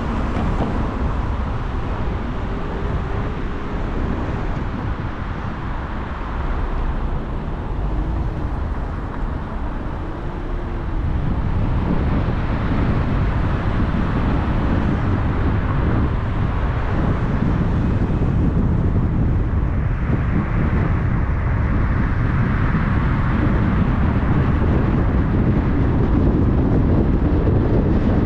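Road noise of a car driving on a highway: steady tyre and wind rush, heaviest in the low range, growing a little louder about eleven seconds in.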